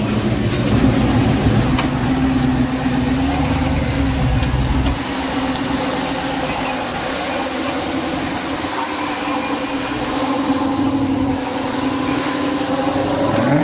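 Car engine running at a steady idle, with a deep low rumble that drops away about five seconds in.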